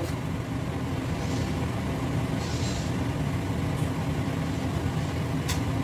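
Steady low rumble of a kitchen, with chicken fat frying in oil in a pan on a gas stove. A brief scraping hiss comes about two and a half seconds in, and a single metal clink of a ladle near the end.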